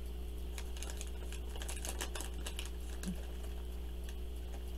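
Close-up chewing of a crunchy chocolate peanut grain bar: many small, irregular crunches and clicks. A steady low hum runs underneath.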